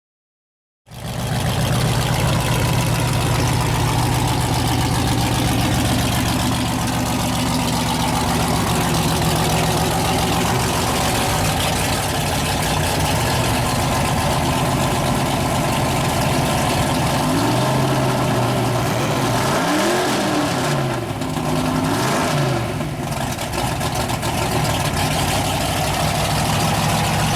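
A mud truck's big engine running loud and steady, revved up and back down several times about two-thirds of the way through.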